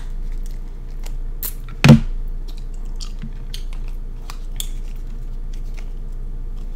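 Close-miked eating: chewing and mouth sounds with scattered small clicks of crab shell being handled, and one loud sharp crack about two seconds in.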